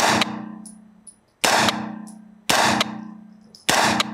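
Springfield Armory Saint Victor 9mm carbine firing four shots, a second or so apart, each shot ringing off in the indoor range.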